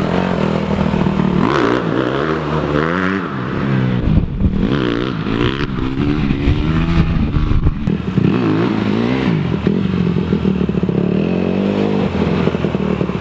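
Dirt bike engine running in first gear and revved over and over, its pitch rising and falling about five times as the throttle is blipped for wheelie attempts.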